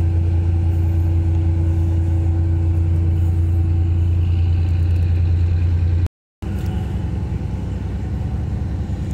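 Car ferry's engines running with a steady low drone and a held hum above it, briefly cut out about six seconds in.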